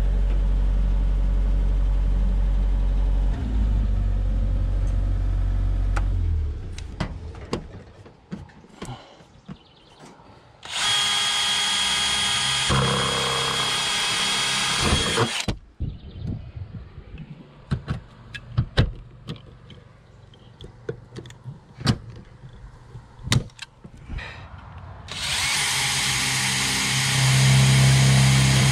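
A cordless drill runs twice, for about five seconds and then about four, drilling into sheet-metal roof flashing. Scattered clicks and knocks come between the two runs, and a steady low hum plays for the first six seconds before stopping.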